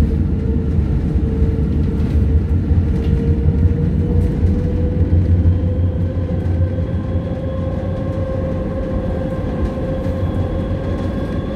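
Driverless metro train running through a tunnel, heard from inside the front car. A steady low rumble sits under a whine of several tones that slowly rises in pitch as the train gathers speed.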